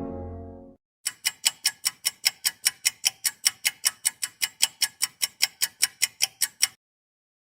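A low horn note fades out in the first second. Then comes a rapid, even ticking sound effect, about five sharp ticks a second, running for nearly six seconds before it stops abruptly.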